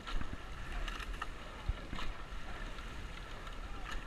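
Racing rowing eight under way: oars knocking in their oarlocks at the strokes, a sharp click every second or two, over a steady rush of water and low wind rumble on the microphone.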